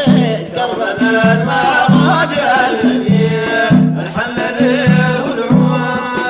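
Sudanese Sufi madeeh music: voices singing a praise song over a steady low beat that repeats about twice a second.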